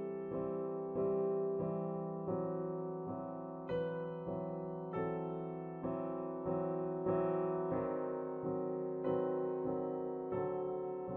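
Background music: slow solo piano, a note or chord struck about once a second and left to fade.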